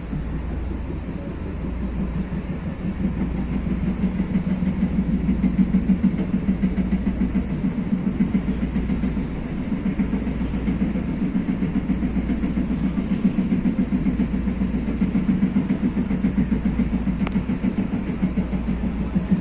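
TE-90 light rail car running along the track, heard from on board: a steady low rumble of wheels and running gear with a fast rhythmic pulsing. It grows louder a few seconds in and eases briefly about halfway through.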